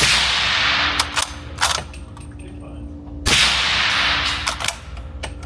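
Two suppressed rifle shots of 300 Blackout 110-grain through a Q Black Thunder Chicken suppressor, about three seconds apart. Each is a sharp report followed by a hissing tail of about a second, with several short sharp clicks after each shot.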